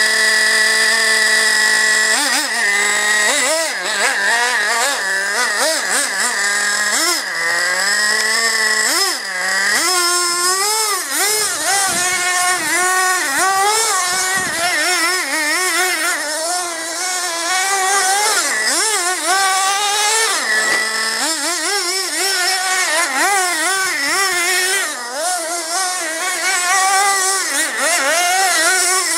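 Traxxas Revo RC monster truck's 2.5 cc nitro engine, high-pitched, idling steadily for about two seconds, then revving up and down constantly as the truck is driven.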